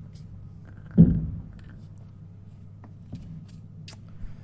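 A single dull thump about a second in, dying away quickly, over a low steady hum, with a few faint clicks later on.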